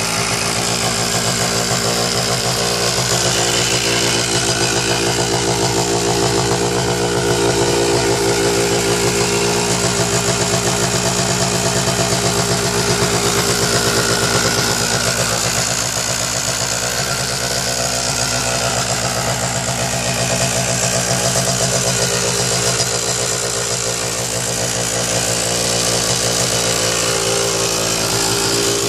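Water-cooled KTM 65 SX 65cc two-stroke single-cylinder engine in a moped frame, idling steadily with a small rise and fall in level.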